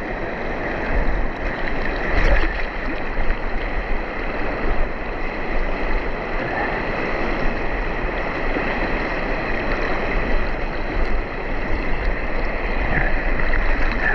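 River water rushing steadily over rocks, with a low rumble underneath.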